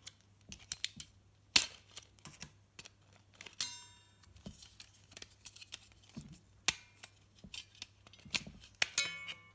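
Plastic clicks and taps from the parts of a TV remote control being handled and pulled apart, with a sharp snap about one and a half seconds in. Two brief squeaky creaks come a little under four seconds in and again near the end.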